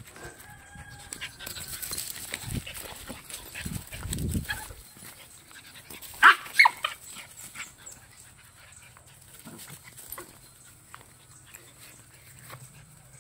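Dogs playing on grass: scuffling and rustling, then two short loud barks about six seconds in, a third of a second apart.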